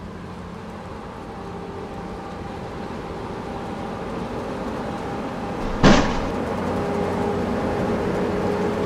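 Car driving noise heard inside the cabin, a steady engine-and-road hum that grows gradually louder, with one sharp loud bang about six seconds in.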